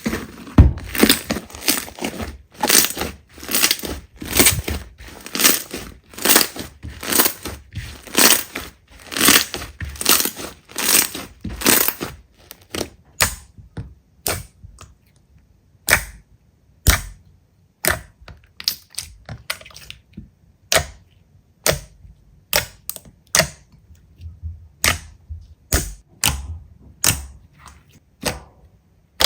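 Slime being pressed and squeezed by hand, making crisp pops and crackles as air pockets burst, about two a second at first, then sparser single snaps after about twelve seconds.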